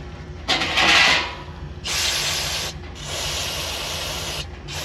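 Aerosol can of brake cleaner spraying in about four hissing bursts of a second or so each, blasting brake dust and grime out of the rear brake caliper bracket where the pads sit.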